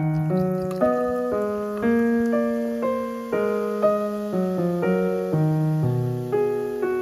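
Background piano music, a gentle melody with a new note about every half second.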